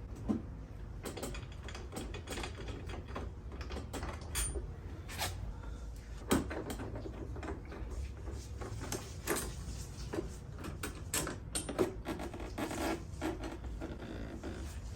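Scattered clicks and light knocks of motorcycle parts and hand tools being handled during disassembly, a few sharper knocks among them, over a steady low hum.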